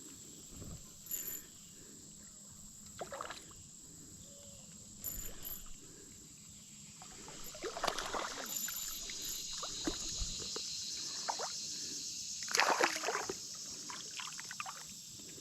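Intermittent water splashing and sloshing in a shallow creek, a few short splashes at first and then a busier stretch, loudest about two-thirds of the way through, over a steady high insect hiss.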